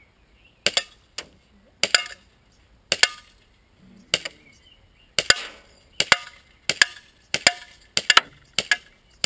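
ASG M9 Heavy Weight gas blowback airsoft pistol, run on Ultrair gas, firing about ten single shots, each a sharp crack. They come about a second apart at first, then quicker, under a second apart, from about five seconds in.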